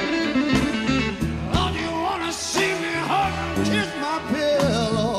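Blues-rock background music: guitar and a steady drum beat.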